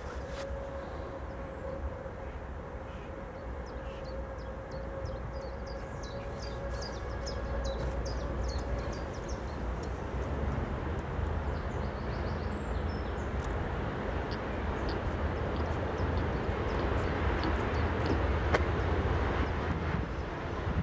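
Electric freight train of tank wagons approaching, its rumble growing steadily louder from about halfway in. A thin steady whine sounds through the first several seconds and fades, and there is a single sharp knock near the end.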